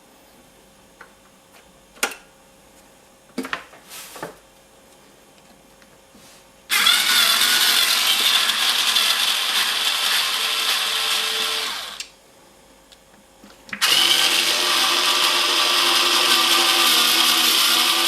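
Small handheld power tool running in two long stretches of about five seconds each, after a few light clicks and knocks.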